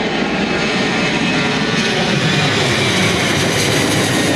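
Steady jet engine noise from a Boeing 737-800 airliner and its CFM56 turbofans.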